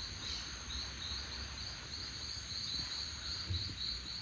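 Insects, cricket-like, chirping steadily in a high-pitched pulsed trill of about three to four pulses a second, over a faint low rumble.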